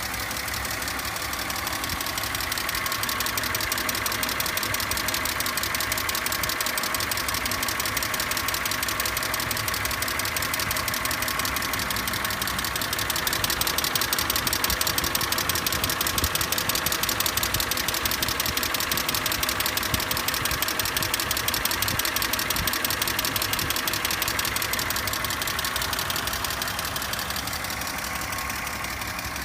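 BMW E46 engine running with a fast, even clicking over it.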